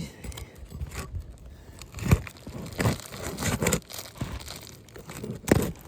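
Asphalt roof shingles being pried up with a tool: irregular crackling and crinkling as the brittle shingle and its sealant give way, with sharper cracks about two seconds in and near the end.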